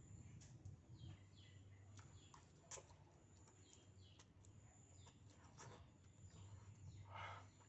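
Faint noodle-eating sounds: a metal fork clicking against a plastic bowl, slurping and chewing, with a louder slurp or chew about seven seconds in. Small birds chirp repeatedly in the background.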